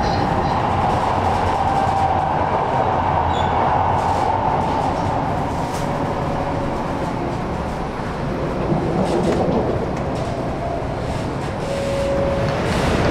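Running noise of a 500-series Shinkansen heard from inside the train: a steady rumble and rush, with a couple of brief faint squeals.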